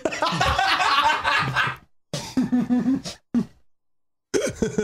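Men laughing, in bursts with a short break between them.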